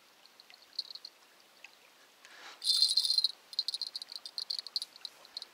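Small bite-alarm bell clipped on a fishing ground line jingling as the line is handled: a few faint tinkles, a loud ring about two and a half seconds in, then a run of quick jingles.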